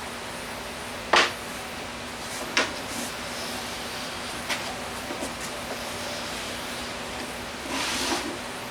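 Objects being handled on a workbench over a steady hum: a sharp knock about a second in, a smaller knock, a few light clicks, then a short scrape near the end.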